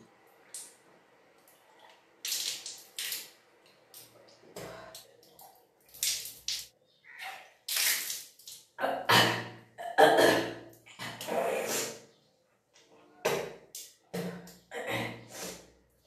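A person retching and gagging in repeated, irregular heaves while bringing up water during kunjal kriya (yogic cleansing by induced vomiting), the water splashing down in spurts.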